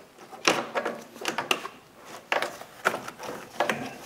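Plastic radiator cooling fan assembly of a 1997 Pontiac Sunfire being pushed and worked up into place under the car, knocking and scraping against the radiator and the frame: about five sharp clacks with rubbing between them.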